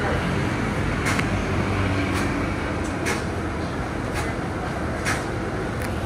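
Steady street traffic noise with a vehicle engine running, and a light tap about once a second.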